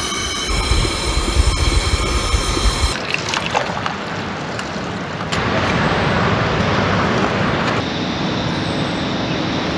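Stovetop moka pot brewing on a gas camp stove, hissing with a steady high whistle over the burner's rumble. About three seconds in the sound cuts to coffee being poured into a mug.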